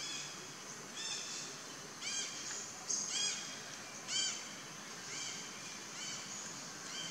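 A bird calling over and over outdoors: a short call that rises and falls in pitch, repeated about once a second, over a steady high hiss.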